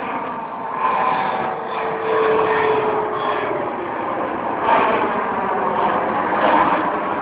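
Turbofan jet engines of an airliner climbing out overhead just after takeoff: a loud, continuous roar that swells and ebbs, with a brief droning tone a couple of seconds in.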